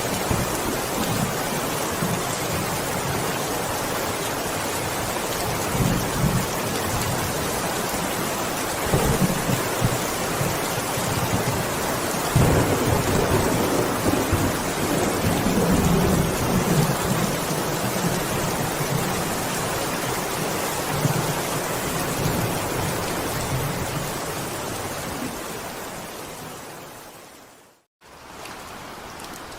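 Heavy rain falling in a steady loud hiss, with deep low rumbles swelling several times in the first half. Near the end it fades out to a moment of silence, then the rain returns softer.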